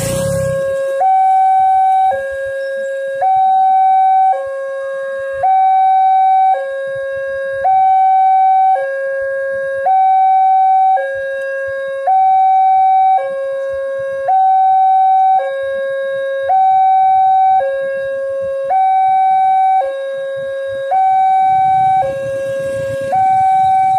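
Railway level-crossing warning signal sounding a two-tone electronic alarm, alternating a lower and a higher note about a second each while the crossing barrier is down: the warning that a train is approaching. Road noise from a passing vehicle swells near the end.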